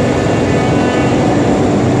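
CNC router running steadily: a loud, even machine drone with a mix of steady tones.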